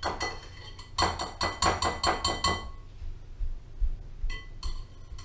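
A metal utensil tapping against a glass bowl: a brief flurry of clinks, then a quick run of ringing taps lasting about a second and a half, and two single clinks near the end.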